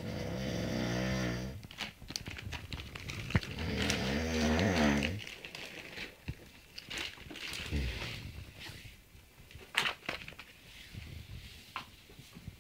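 Two long, low, drawn-out groans, each about a second and a half, the second wavering and rising at its end, with rustling of bedding and scattered soft knocks between and after.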